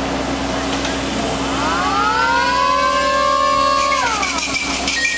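A whistle sounds for about two seconds, rising in pitch as it opens, holding, then dropping away quickly as it shuts off, over the steady hum of a small engine.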